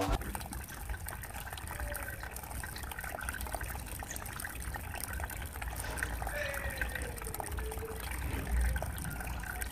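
Water trickling and splashing steadily over a miniature waterfall built into a broken clay jar.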